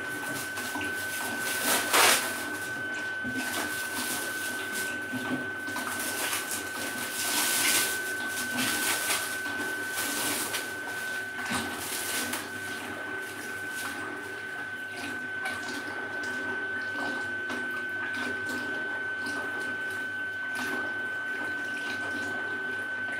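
Resin wash station running with water in its tank, a steady swishing of water over a constant thin high whine. A sharp knock about two seconds in, and crinkling plastic wrap for several seconds in the middle as a cover panel is unwrapped.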